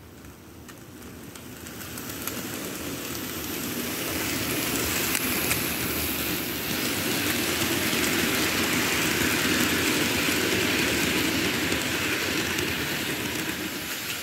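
Kato N scale GS-4 Daylight locomotive and its passenger coaches rolling along model track close past the microphone: a steady rolling rumble of small wheels on the rails. It builds over the first few seconds as the train draws near and eases slightly near the end.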